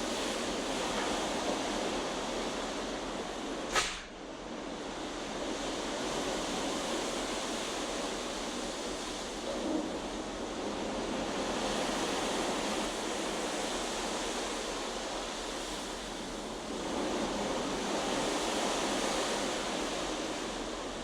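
Ocean waves below a cruise ship's balcony: a steady rushing wash that swells and eases slowly, with a sharp click about four seconds in.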